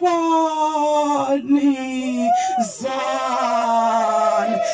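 A woman's voice through a microphone and speaker, singing out long drawn-out notes. One held note sinks slowly for about two seconds, a short swoop up and back down follows, and then comes another long held note.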